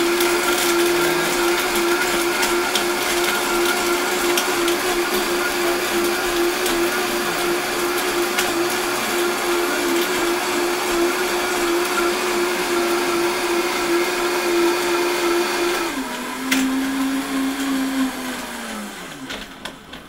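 Vitamix blender motor running at a steady high speed, blending a thick cacao and water mix. About sixteen seconds in the speed is turned down, and near the end the motor winds down as it is switched off.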